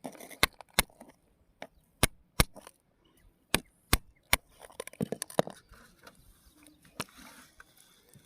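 A series of sharp knocks of hard objects striking, irregularly spaced and often in pairs, with a quick cluster about five seconds in.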